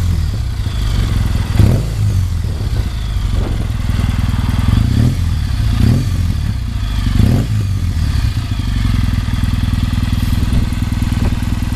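Kawasaki W650 air-cooled vertical-twin running through an early-type Nasart Trad aftermarket muffler with no catalyst, idling with a steady low exhaust beat. Several short throttle blips come in the first half, then it settles back to an even idle.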